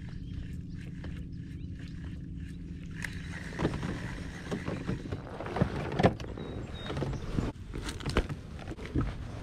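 A baitcasting reel being cranked on a kayak: a low steady whir with faint regular ticks. About three seconds in it gives way to irregular clicks, knocks and rustles of gear being handled: a zippered kayak bag and a plastic bottle.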